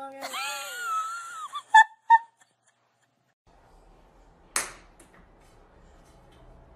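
A hairless Sphynx cat's drawn-out meow, bending up and down in pitch, then two short bright pings a fraction of a second apart, the loudest sounds here. After a short silence there is faint room noise with a single sharp click.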